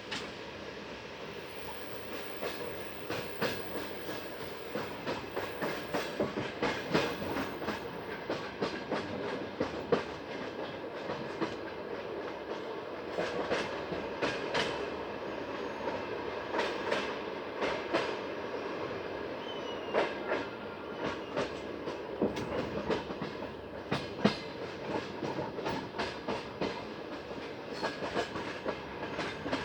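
Passenger train wheels clacking over rail joints, heard from aboard the carriage: a steady rolling rumble with irregular sharp clacks, some much louder than the rest.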